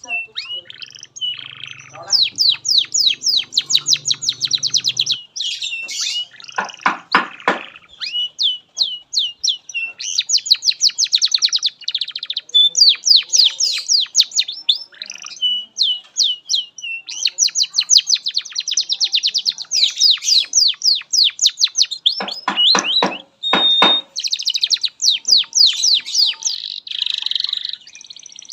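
Domestic canary singing a long unbroken song of fast, high repeated chirps and trills, twice dropping into deep rattling rolls.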